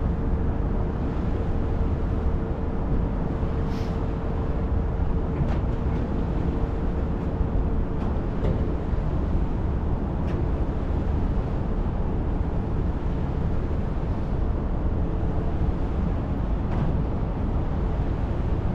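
Passenger ferry's engine running with a steady low drone and rush of noise, with a faint steady tone that fades out about two-thirds of the way through.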